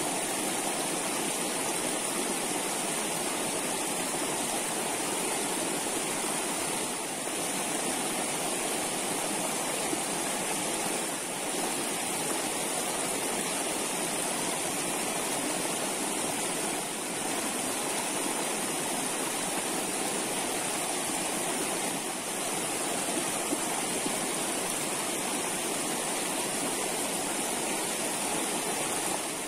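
Steady rush of flowing stream water: an even, unbroken noise.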